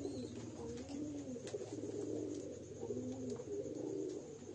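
Domestic pigeons cooing, with low rolling coos that overlap and continue without a break. A steady low hum runs underneath.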